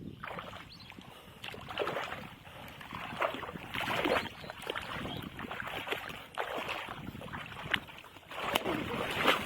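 Water splashing and sloshing in irregular bursts, with a few sharp clicks.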